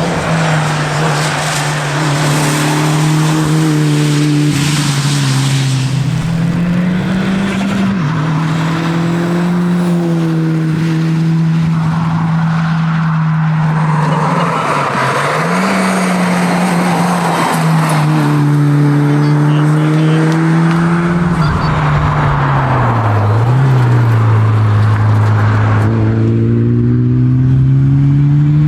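Mitsubishi Lancer Evolution VIII's turbocharged four-cylinder engine under load at rally pace. Its note holds for long spells and drops and climbs again a few times as gears change, with tyre noise swelling at times.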